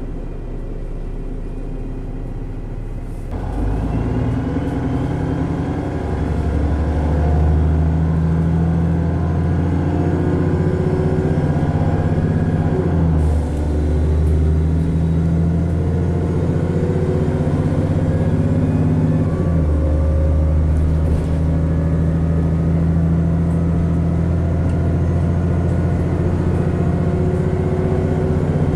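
Diesel engine of a VDL DB300 double-decker bus pulling hard under acceleration, heard from inside the saloon, with its Voith four-speed automatic gearbox. The bus is running in limp mode. The engine note grows louder about three seconds in, then drops and picks up again twice, around 13 and 20 seconds in, as the gearbox changes up.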